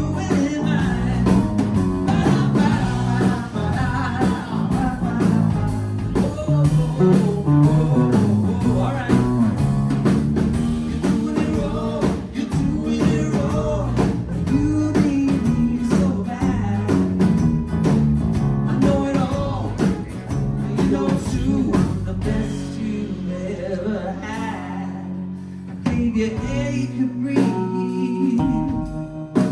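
Live pop-rock song: a male lead voice singing over guitar, bass and drums. The band drops back and gets quieter about 24 seconds in, then builds again near the end.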